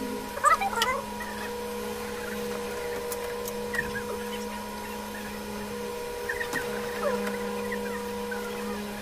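A steady hum with chicken-like calls over it, the loudest burst about half a second in and more scattered through the rest. A few faint sharp clicks sound around the middle.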